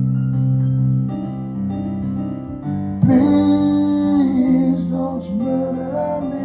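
Music with sustained keyboard chords, likely a backing track. About three seconds in, a loud held sung note slides up into place, with no words.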